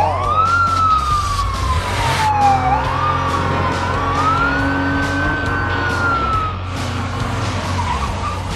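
A cartoon siren wailing slowly up and down in pitch over a steady low rumble, with a few short clicks.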